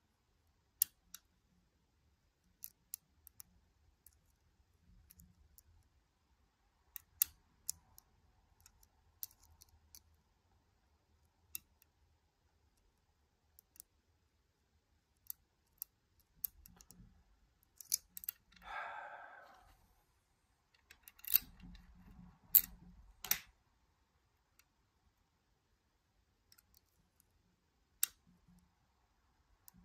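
Lock pick and tension tool clicking irregularly against the pins and keyway of a Nemef NF2 lock cylinder during single-pin picking, with a few louder clicks in quick succession about two-thirds of the way through. A short rasping sound comes just before them.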